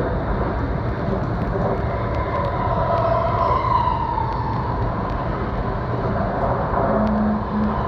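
Running noise of an E4 series Shinkansen heard from inside the carriage as it pulls away from the station: a steady rumble and rush with a faint whine that rises in pitch about three seconds in.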